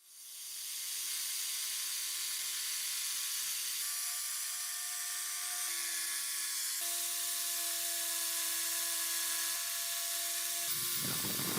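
Small electric power tool running steadily with a high hiss, its pitch shifting slightly a few times, with a rougher burst near the end.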